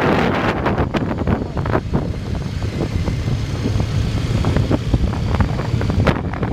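Wind buffeting the microphone of a moving motorcycle over the steady low drone of motorcycle and scooter engines. The gusts are heaviest at the start and again near the end, and ease off in the middle.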